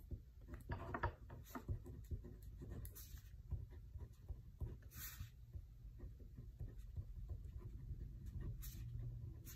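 Handwriting on paper: faint, irregular scratching strokes of a pen or pencil as the coin values are written out.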